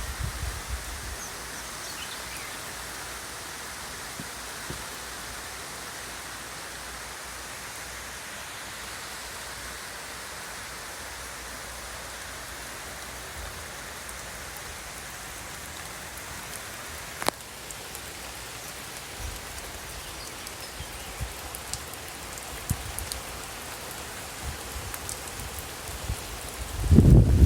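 Steady rain falling, an even hiss of drops on the surfaces around. A single sharp tick about two-thirds of the way through and a few faint drop ticks after it; a loud low rumble comes in just before the end.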